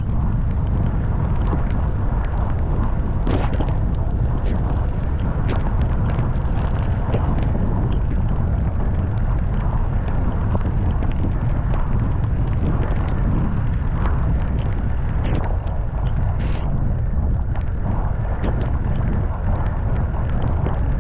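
Wind buffeting the microphone during a ride, a steady low rumble, with scattered sharp clicks and knocks.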